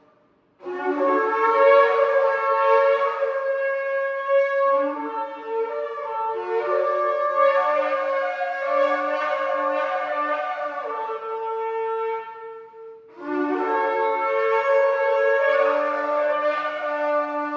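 Shofar blowing in long sustained blasts, with several pitches sounding at once. It starts under a second in, breaks briefly about three-quarters of the way through, then another long blast follows.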